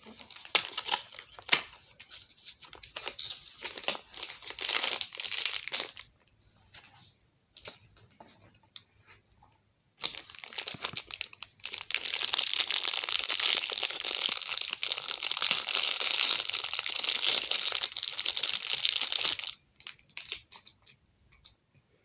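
Clear plastic wrapping crinkling and tearing as a stress ball is unwrapped from its packaging. It comes in short bouts of handling at first, then there is a long spell of steady crinkling from about ten seconds in until shortly before the end.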